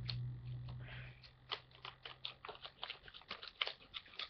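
Plastic mystery-pack wrapper crinkling and crackling in irregular clicks as it is cut and pulled open, with a low hum fading out in the first couple of seconds.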